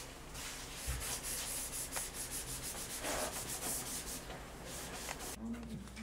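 Quick, repeated rubbing strokes on a hard surface, several a second, stopping about five seconds in.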